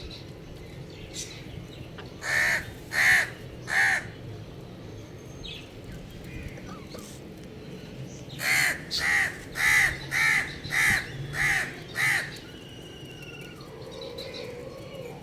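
Crow cawing: three harsh caws, then after a pause a run of seven, evenly spaced.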